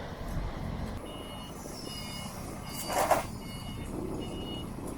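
Electronic warning beeper giving short high beeps about every 0.8 s, starting about a second in, over a low factory machinery hum. A short burst of hissing noise comes around the middle.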